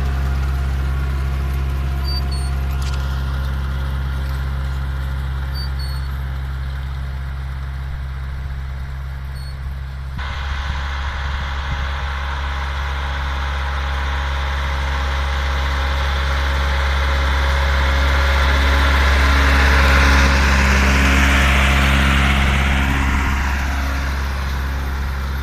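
Massey Ferguson 3050 tractor's diesel engine running steadily under load as it pulls a seed drill through the field. Its sound swells louder about two-thirds of the way through as the tractor comes close, then eases off.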